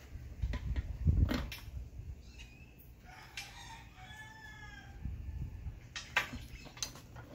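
A rooster crows once in the background, a single drawn-out call of about a second and a half starting about three seconds in. Before it come dull thumps and rustling from heavy winch power cables and the control box being handled, the loudest about a second in.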